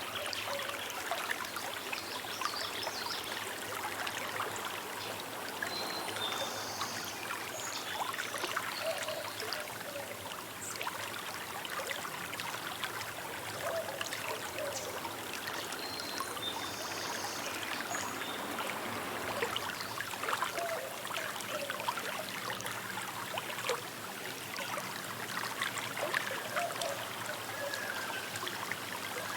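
Small river flowing, a steady babble and trickle of water.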